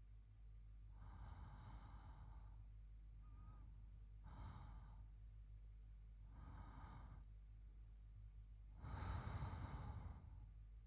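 A man's slow, sleepy breathing close to the microphone: four soft breaths about two seconds apart, the last the longest and loudest, like a sigh.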